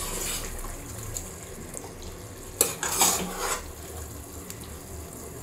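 Ladle scooping mutton gravy from a pot into a steel bowl, with a few knocks of the ladle against the rims a little past halfway.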